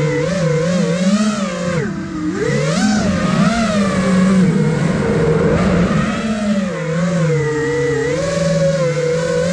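iFlight Nazgul Evoque F5 5-inch FPV quadcopter's brushless motors and propellers whining, the pitch rising and falling constantly with the throttle. Heard from the onboard camera, with air rushing past.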